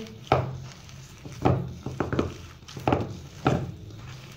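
A hand squeezing and kneading mashed boiled potato with green chillies and spices in a bowl: soft squelching presses, each with a low thump, about five in all.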